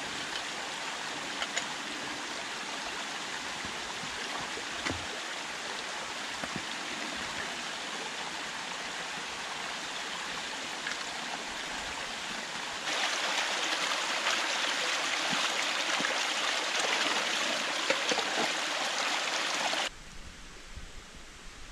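Small mountain stream rushing and splashing over stones, with a few faint knocks; the water grows louder about two-thirds of the way through. Near the end it cuts off suddenly to a much quieter, even hiss.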